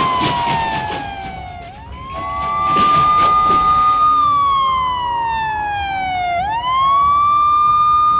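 Ambulance train's siren in a cartoon: one wailing tone that holds, slides slowly down, then sweeps quickly back up, twice over. A burst of rapid clicking comes about three seconds in.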